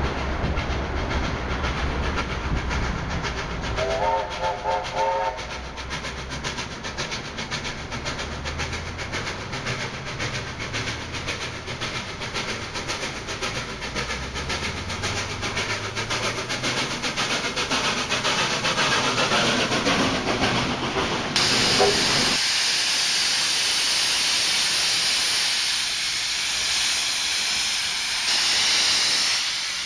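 Steam locomotives of a triple-headed train climbing, with a fast run of exhaust beats, and a steam whistle blown briefly about four seconds in. About twenty seconds in, the sound changes abruptly to a loud steady hiss of steam escaping around the cylinders of NSW steam locomotive 3265.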